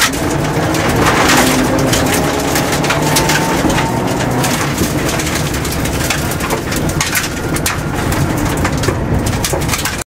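Mitsubishi Lancer Evolution rally car's turbocharged four-cylinder engine running hard, heard from inside the cabin, with gravel stones clattering against the underbody as the car drives a gravel stage. The sound cuts off suddenly near the end.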